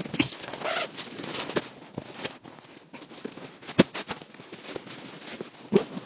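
Irregular clicks, knocks and rustling from something being handled, with two sharper knocks in the second half.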